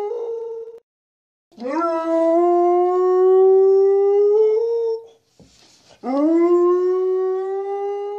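A Rottweiler–Beagle mix dog howling. One long howl trails off just after the start, then a full howl of about three and a half seconds, and a third begins near the end. Each scoops up in pitch at the start, then holds steady with a small step up before it ends.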